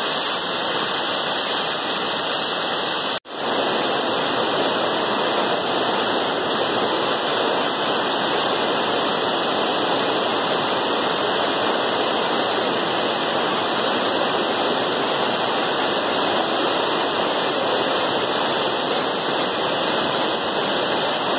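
Waterfall pouring: a loud, steady rush of falling water, cut off for an instant about three seconds in.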